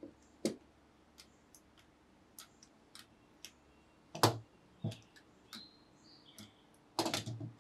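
Scattered light clicks and knocks of a brayer and small clay tools handled against a work board while a clay coil is rolled out into a mug handle, with a louder knock about four seconds in and a quick run of knocks near the end.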